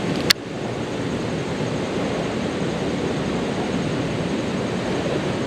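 Steady outdoor rushing noise, with a single sharp click about a third of a second in.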